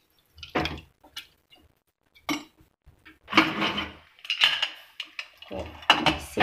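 Metal ladle clinking and scraping against an aluminium pressure cooker as sambar is stirred, then the cooker lid clattering against the rim as it is fitted on near the end. A string of separate short clinks, sparse at first and louder and busier in the second half.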